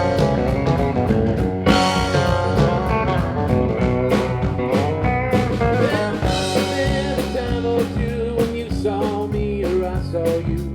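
Live country band playing an instrumental passage: drum kit keeping a steady beat under bass and electric guitar, with lead guitar lines that bend up and down in pitch.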